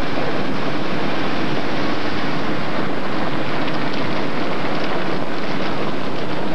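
Steady rush of wind and road noise from a moving car, buffeting the camcorder's microphone.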